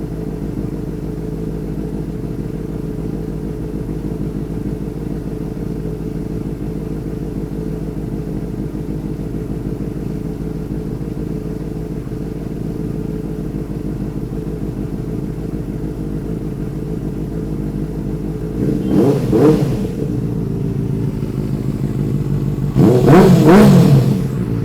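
Benelli TNT 600i inline-four engine idling steadily through an aftermarket IXIL exhaust while warming up after a cold start. Near the end it is blipped twice, about four seconds apart, the pitch rising and falling each time, the second rev the louder.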